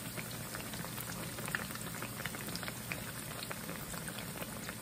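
Two beer-battered tilapia fillets frying in hot oil in a skillet: a steady sizzle with scattered small pops and crackles.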